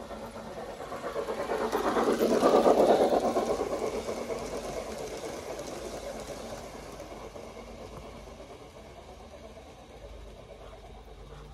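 Gauge 1 model train with its coaches running past close by; its sound swells to a peak about two and a half seconds in, then slowly fades.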